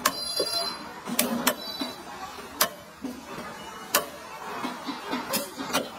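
Knife striking a wooden chopping board while meat is cut, sharp knocks at uneven intervals about once a second, over a murmur of background voices.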